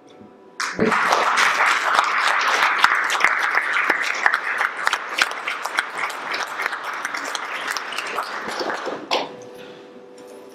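Audience applauding: dense clapping that breaks out about half a second in and dies away about nine seconds in.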